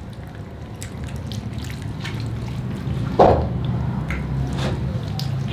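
Wet squelching and smacking of hands rubbing spice marinade into a whole raw lamb, the meat and fat squishing under the palms in many short irregular smacks. One louder thump comes about three seconds in.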